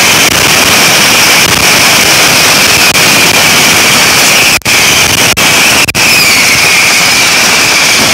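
Fireworks on a burning pyrotechnic bull (torito) going off nonstop: a dense, very loud hiss and crackle of spinning, spark-throwing fireworks with a steady high whistle over it. The sound cuts out for an instant a couple of times about halfway through.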